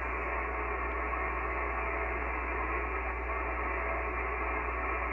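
Steady hiss of HF band noise from an Icom IC-7300 transceiver's speaker, tuned between stations with no voice coming through.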